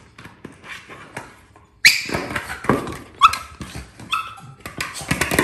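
A Staffordshire Bull Terrier "talking" to her ball: excited whining and grumbling vocal sounds that break out suddenly about two seconds in, mixed with scuffs and clicks of teeth and claws on the ball.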